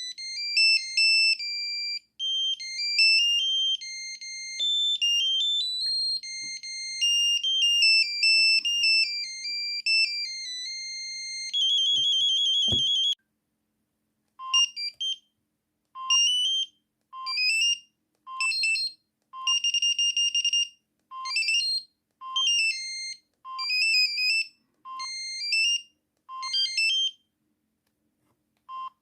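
Samsung SGH-N710 mobile phone playing its ring and message tones through its small speaker: a tinny beeping melody of quick notes, one at a time. About halfway through comes a buzzing warbled tone, followed by a string of short beeping phrases with brief gaps between them.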